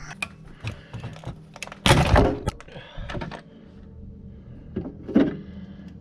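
The plastic overload relay and start-capacitor unit of a refrigerator compressor suddenly popping off its terminal pins with a loud crack and clatter about two seconds in, among smaller clicks of handling.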